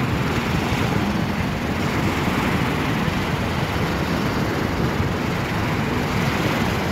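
Personal watercraft (jet ski) engine running steadily, heard as a continuous low rumble.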